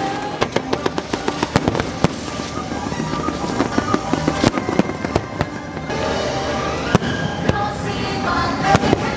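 Fireworks popping and crackling over the show's music soundtrack: a quick run of sharp pops in the first two seconds, then scattered bangs.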